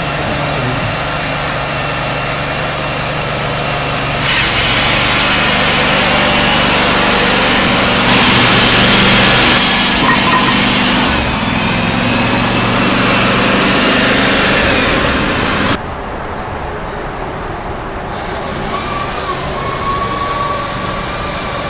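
Power-driven saw cutting through an iron water main, over the steady run of the engine that drives it. The cutting noise grows louder about four seconds in and drops off suddenly about sixteen seconds in, leaving the engine running more quietly.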